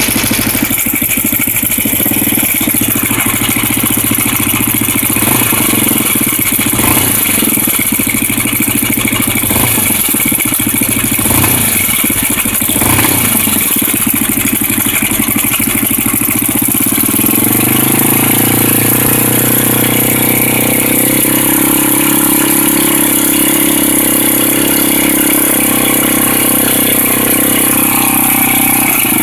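Honda NX250 single-cylinder engine idling with a rattle, which the owner puts down to the cam chain tensioner. About seventeen seconds in, the engine speed rises slightly and holds steady.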